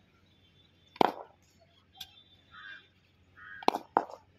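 Cricket bat striking a cricket ball during hand-fed batting drills: a sharp crack about a second in, a lighter tick a second later, and two more sharp knocks close together near the end.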